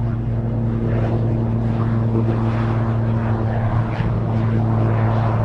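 Pilatus PC-12/45's single turboprop engine running as the aircraft moves along the runway: a steady low propeller drone with a rougher noise over it.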